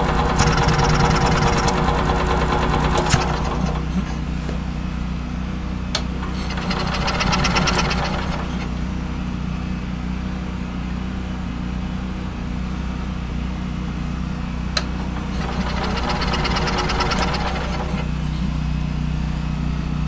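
Onan generator's engine running rough on a cold start, with three spells of harsher, higher buzzing over a steady drone. It won't stay running, which the owner suspects is fuel-pump related.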